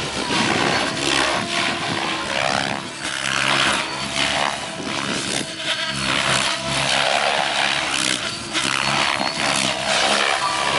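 Radio-controlled helicopter's rotor blades whooshing as it flies aerobatics. The sound swells and fades about once a second as the blade pitch changes through the manoeuvres.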